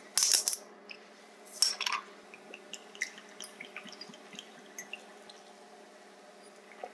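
Metal screw cap on a glass soju bottle twisted open with a brief crackle and a second short rasp, then soju poured into a small shot glass with faint trickling and drips.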